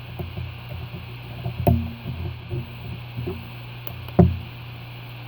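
A few light knocks and small clicks from handling a transistor tester while a transistor is re-seated for another test, the loudest knocks about a second and a half in and near the end, over a steady low hum.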